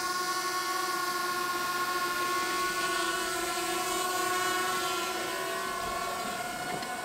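A steady, held droning tone with overtones that eases off slightly near the end.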